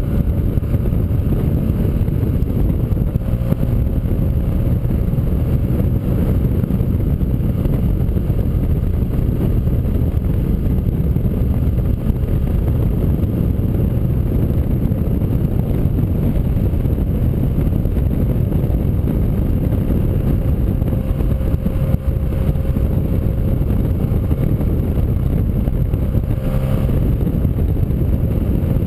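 Motorcycle running steadily at road speed, its engine and the rush of air blending into a constant low noise.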